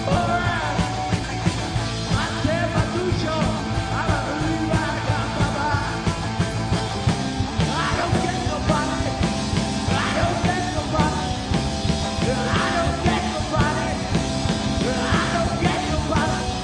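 Rock band playing a loud, driving song on drums, bass guitar and electric guitar, with yelled vocals.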